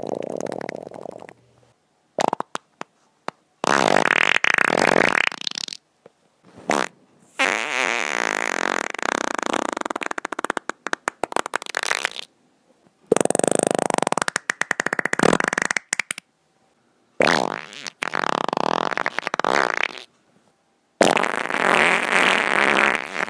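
A series of wet human farts, about six in all, each sputtering and crackling for one to five seconds, with sudden silent cuts between them.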